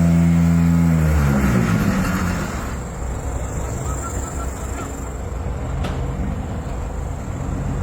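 Automatic pumice block machine running: a loud steady hum of several tones winds down in pitch and stops about a second in, leaving a quieter rough mechanical running noise from the plant.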